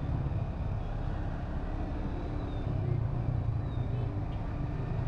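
Yamaha New Vixion Lightning's 150 cc single-cylinder engine running steadily at low speed, heard as a low rumble, amid slow traffic of other motorcycles and cars.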